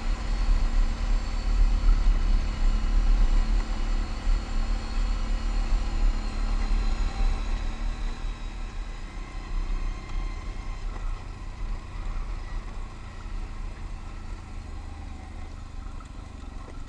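Can-Am ATV engine running as it rides along a dirt trail. Strong and steady for the first half, then easing off and growing gradually quieter as the machine slows.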